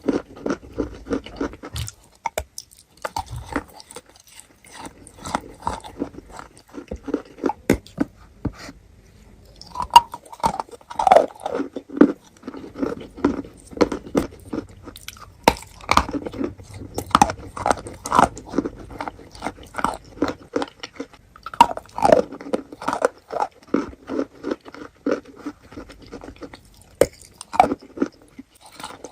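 A person biting and chewing wet chalk coated in clay paste: irregular crunches and wet chewing, with a few sharper, louder bites and a couple of short pauses.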